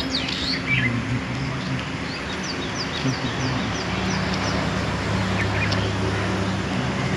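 Small birds chirping: a quick run of short, repeated high chirps, about five a second, through the middle, over a steady low hum and a constant hiss.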